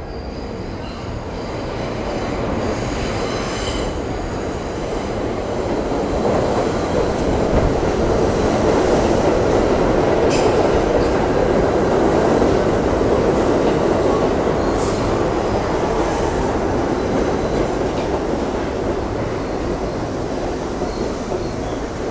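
New York City subway 7 train arriving in an underground station, its rushing wheel and motor noise building as it enters and then easing as it slows along the platform. Occasional sharp clicks from the wheels and a few faint high wheel squeals come near the end.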